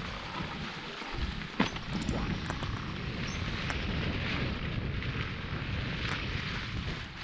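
Mountain bike riding down a singletrack trail: tyres rolling and crunching over dry leaf litter, the bike rattling, with wind rumbling on the microphone. A single sharp knock about a second and a half in, from the bike hitting a bump.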